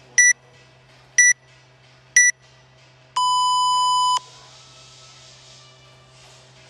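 Workout countdown timer beeping: three short, high beeps a second apart, then about three seconds in a longer, lower beep lasting about a second that signals the start of the workout.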